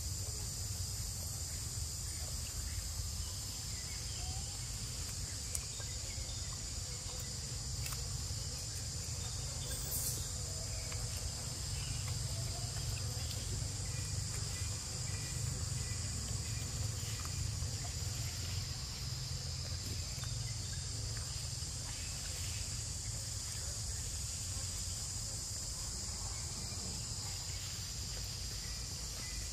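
Steady, high-pitched chorus of forest insects droning without a break, over a constant low rumble.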